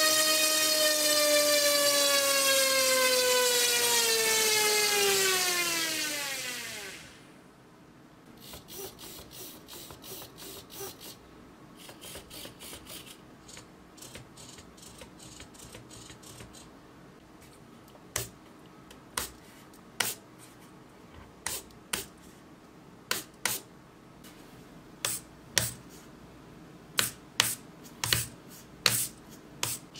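A small electric motor, worked from the radio's throttle stick through a speed controller, runs with a high steady whine, then winds down in pitch and stops about seven seconds in. After that small hobby servos buzz in short bursts as the sticks move them, with a quick run of sharper whirs in the second half.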